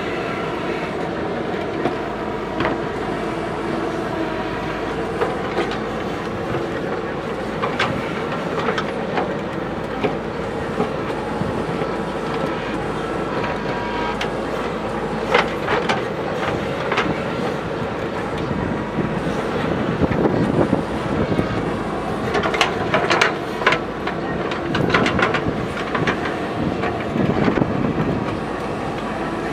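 JCB backhoe loader's diesel engine running steadily, with scattered clanks and rattles that come more often in the last third.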